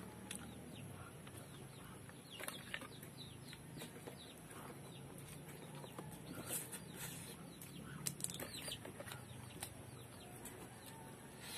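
Oyster shells clicking and tapping as the meat is picked out of them by hand, with faint eating sounds; scattered short clicks over a low steady background hum.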